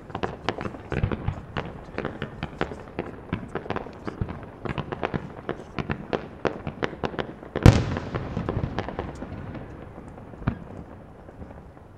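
Fireworks display: a rapid run of crackling pops for most of the first seven seconds, then one loud bang of an aerial shell with a long rolling echo. After it the crackle thins out, with a single further crack near the end.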